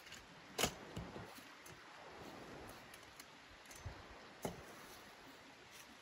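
A folding camp chair being handled and set down: a few sharp clicks and knocks from its frame, the loudest under a second in, over a faint steady hiss.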